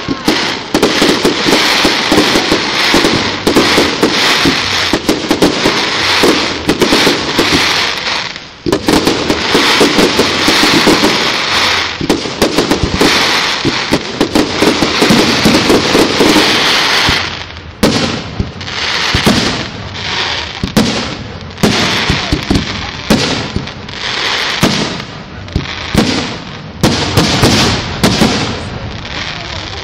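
Fireworks display: a dense, continuous barrage of bangs and crackling for about the first seventeen seconds, then separate loud bangs roughly once a second.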